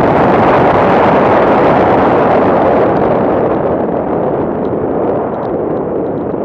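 Loud wind rush and engine noise of a BMW driving fast on a snow track, picked up by a camera mounted on the bonnet. It eases slightly about three seconds in as the car turns into a curve, and a few faint ticks follow.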